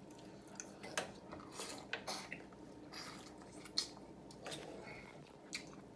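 Boiled crawfish being pulled apart and eaten with saucy hands: scattered wet cracks, clicks and squelches of shells and sauce, a few sharp ones among softer smacking.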